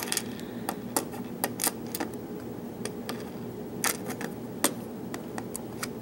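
Metal tweezers setting small lock pins into the slots of a plastic pin tray, making a string of light, irregular clicks and taps.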